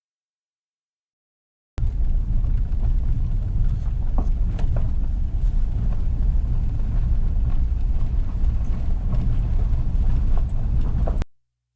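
2013 Ram 1500 pickup driving on a gravel forest service road: a steady low rumble of road and tyre noise with scattered small ticks of gravel. It starts abruptly about two seconds in and cuts off suddenly near the end.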